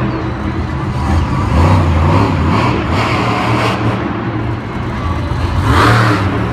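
Monster truck's supercharged V8 engine revving hard in repeated surges of throttle, loudest about two to three seconds in and again near the end.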